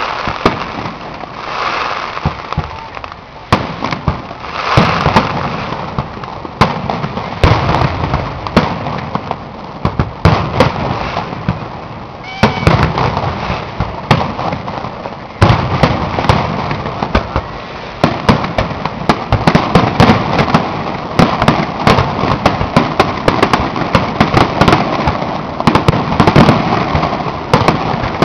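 Fireworks display: aerial shells bursting one after another in a steady stream of bangs and crackling, growing louder and denser about halfway through.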